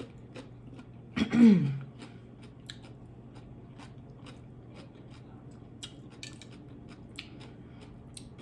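Close-miked chewing and wet mouth clicks of someone eating. About a second in comes one short, loud vocal sound that falls in pitch. A steady low hum runs underneath.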